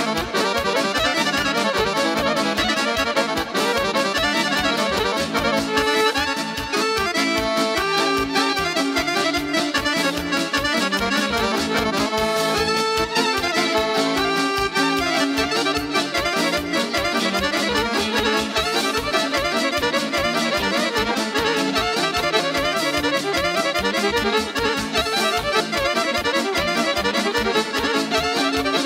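Live band playing an instrumental Serbian folk dance tune for a kolo: an accordion-sounding lead melody over a fast, steady beat from a keyboard arranger.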